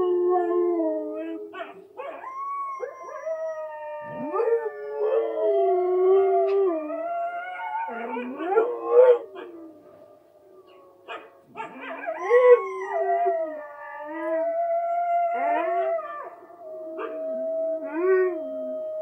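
A husky howls in long, sliding howls, joined by a wolf pack howling from a TV, so that several howls overlap at different pitches. There is a short pause about ten seconds in, then the howling picks up again.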